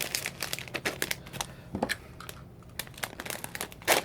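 Plastic snack packet crinkling in the hands as it is worked open, a run of sharp crackles with a loud one near the end.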